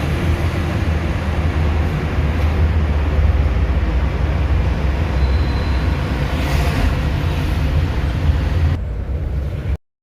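A loud, steady low rumbling noise, which cuts off suddenly near the end.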